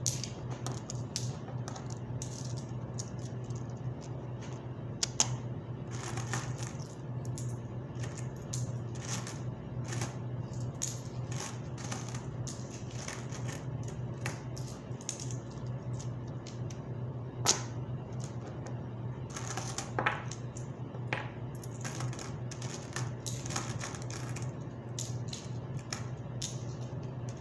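Metal coins clinking and clicking against each other as they are picked off a pile and stacked on a cloth-covered table, a rapid irregular run of small clicks with a few louder clacks, over a steady low hum.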